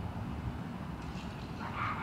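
A short animal call starts near the end, over a steady low background rumble.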